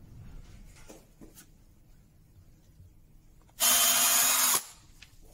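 Cordless drill running in one short burst of about a second, boring a small hole into wood with a thin twist bit. It starts about three and a half seconds in and stops abruptly.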